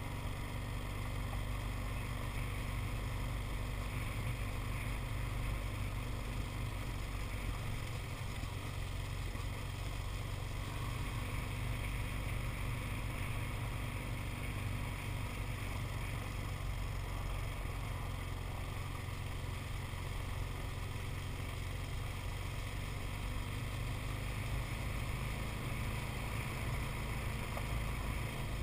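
A four-wheeler (ATV) rolling along a dirt road behind a dog team: a steady low engine hum with tyre rumble, unchanging throughout.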